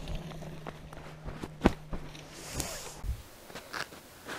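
Footsteps in snow: a few uneven steps with scattered small clicks and knocks, and a dull thump about three seconds in.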